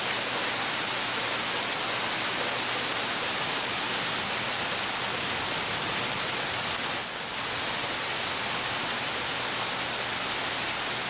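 Steady rain from a thunderstorm falling, an even hiss that does not let up.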